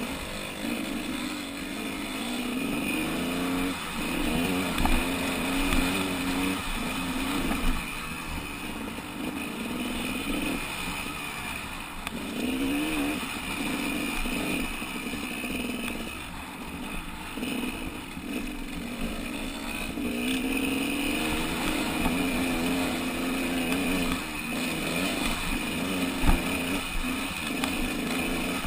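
Off-road motorcycle engine, heard from the rider's own bike, its revs rising and falling again and again as it is ridden, with wind rumbling on the microphone. One sharp knock comes near the end.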